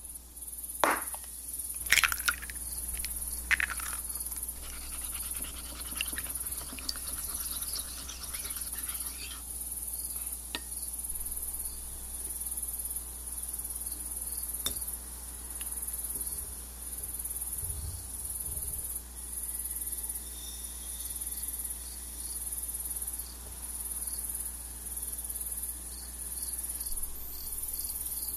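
Crickets chirping in a steady high, pulsing trill. A few sharp clinks and knocks of kitchenware come in the first few seconds.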